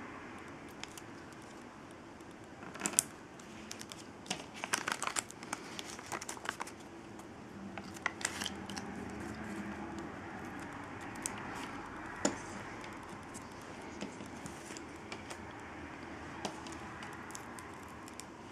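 Paper and card stock being handled on a tabletop: crinkling and rustling with scattered light clicks and taps, busiest about three to seven seconds in.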